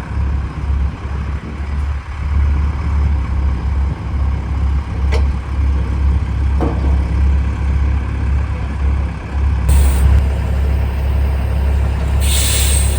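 Semi truck's diesel engine running steadily as it backs up to hitch a trailer, with two sharp hisses of air from its air brakes near the end.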